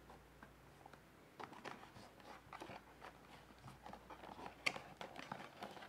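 A small paperboard box being handled and opened: a faint, irregular run of crinkles, scrapes and clicks of the card flap and insert, with one sharper click about three-quarters of the way through.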